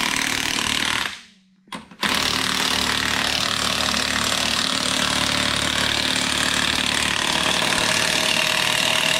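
Air impact wrench running in bursts with a dense, rattling hammer: one short run that stops about a second in, then a long run from about two seconds in.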